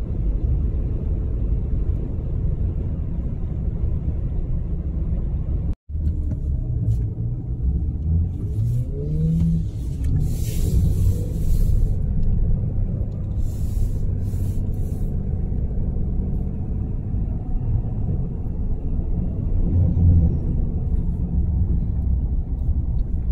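Steady low engine and road rumble inside the cab of a moving turbo-diesel Ram 2500 pickup. It drops out for an instant about six seconds in, then an engine note rises around nine seconds, and a rushing hiss comes and goes twice a little later.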